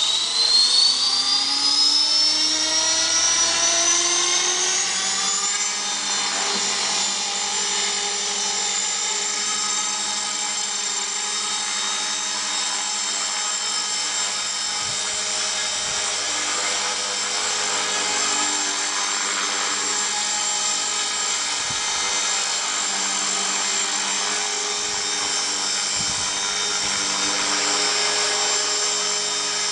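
Align T-Rex 450 electric RC helicopter spooling up and hovering. The whine of its motor and gears rises in pitch over the first several seconds, then holds steady along with the whir of the rotor blades while it hovers.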